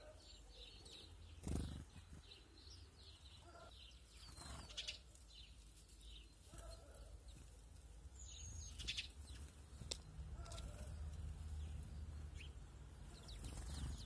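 Small garden birds chirping: short, high calls scattered throughout. A soft thump stands out about a second and a half in, over a faint low rumble.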